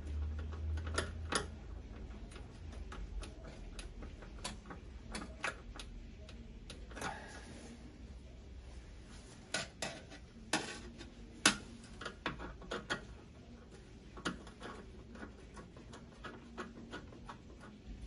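Irregular light clicks and taps with brief rustling as electrical wires are handled inside a griddle's open metal housing. The loudest click comes about halfway through.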